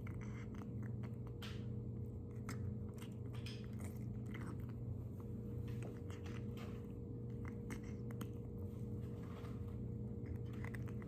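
Shih Tzu puppy chewing and gnawing: an irregular run of small clicks and crunches over a steady low hum.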